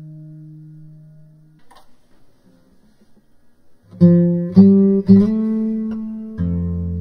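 Acoustic guitar music. A held note fades away, and after a short quiet gap a run of plucked notes starts about four seconds in. A lower chord is struck near the end and rings on.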